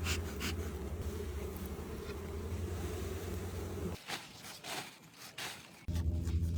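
A steady low buzz that cuts off abruptly about four seconds in and starts again just before the end.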